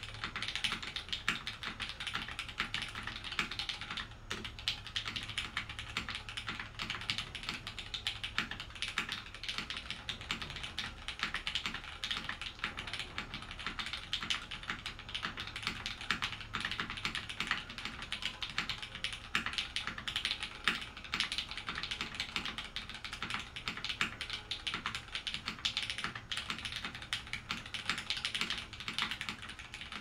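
Continuous typing on an LZ XE mechanical keyboard with lubed Cherry MX Red linear switches in a stainless steel plate: a dense, steady run of key clacks with a short pause about four seconds in.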